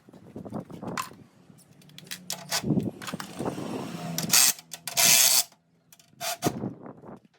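Metal hand tools clicking and clanking during engine repair work, with two short bursts of hiss about four and five seconds in.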